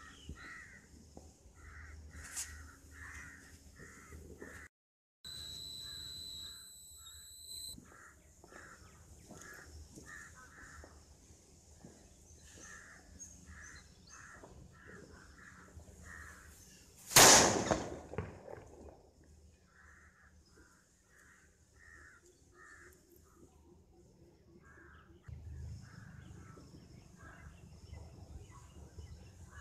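Crows cawing over and over in short repeated calls, with one loud firecracker bang a little past the middle that dies away over about a second. A steady high beep sounds for a couple of seconds early on, just after a brief dropout.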